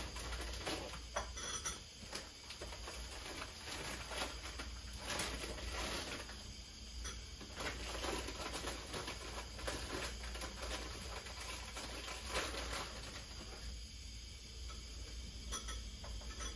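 Irregular light clicks and taps with some rustling, scattered throughout, over a faint steady low hum.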